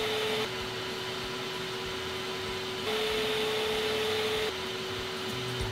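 Bissell BarkBath portable dog bath suction motors running, the recording switching abruptly back and forth between two units three times. A louder one with a higher steady hum alternates with a quieter one with a lower hum; the quieter one is the BarkBath QT.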